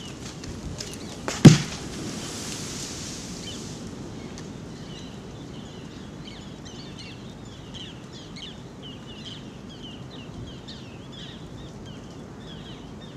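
Aftermath of a grenade disposal detonation: debris ticks down onto the rocks, and one sharp, loud thump comes about a second and a half in. After that there is a steady outdoor hiss, and from about four seconds in small birds chirp over and over.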